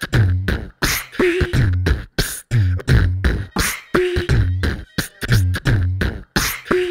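Beatboxing: a voice making a hip-hop beat with the mouth, deep kick sounds about twice a second alternating with sharp snare clicks in a steady repeating pattern, with a short hummed note every few seconds.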